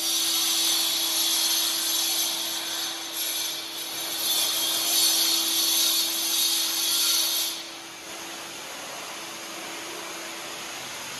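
Ryobi 1400-watt 60-litre wet and dry vacuum running, a steady motor whine under a loud hiss of rushing air. About seven and a half seconds in, the hiss cuts off and the motor runs on more quietly.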